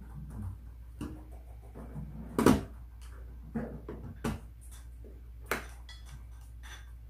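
A phone and small objects being handled on a hard tabletop: a series of short knocks and taps, the loudest about two and a half seconds in.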